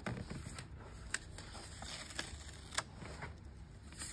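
A few light clicks and taps with soft handling noise as a hand moves over the pages of a coloring book.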